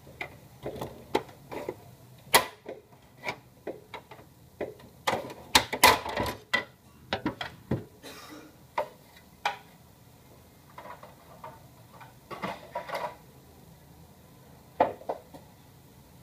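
Irregular plastic clicks and knocks of hands working on an HP LaserJet Pro M225dw's casing and internal parts during disassembly, thickest in a cluster about five to seven seconds in.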